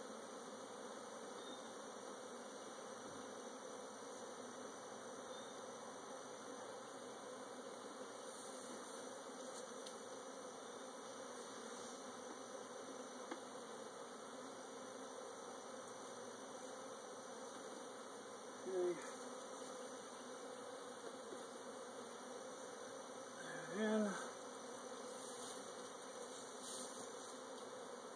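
A swarm of honey bees buzzing steadily around a hive they have just been put into, many still in the air and on the boxes looking for the entrance. Twice near the end, about five seconds apart, a brief louder sound rises above the hum.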